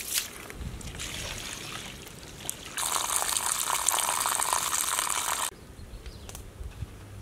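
Water sloshing and trickling as basmati rice is rubbed and squeezed by hand in a steel basin. Then the milky rinse water pours off the basin's rim in a steady rush for a few seconds, which cuts off suddenly about five and a half seconds in.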